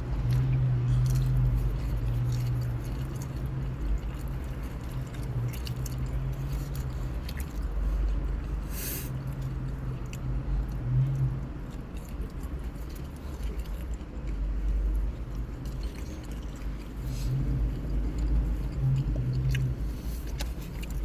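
A person chewing and biting food, most likely a chicken sandwich, close to the microphone, with scattered small clicks and squishes over a steady low hum.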